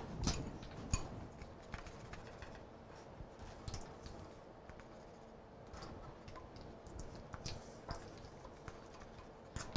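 Faint, irregular light clicks and taps of kitchen utensils against dishes as flour is measured out by the tablespoon.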